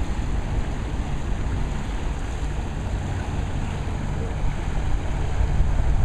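Honda personal watercraft's four-stroke engine running steadily as it cruises past, under a haze of water and wind noise.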